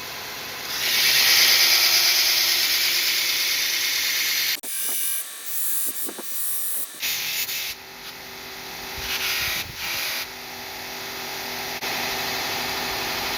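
Grizzly 2x42 knifemaker belt grinder with a steel knife blade held against the running sanding belt: one long grinding pass of about four seconds, then a run of shorter passes as the blade is put on and taken off the belt, over the steady hum of the motor.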